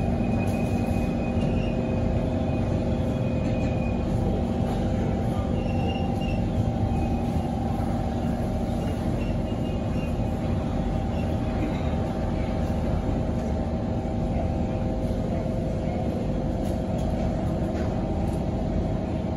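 Inside the carriage of a Kawasaki C151 metro train slowing into a station: steady rolling and running noise with several humming drive and brake tones and a faint high whine in the first half.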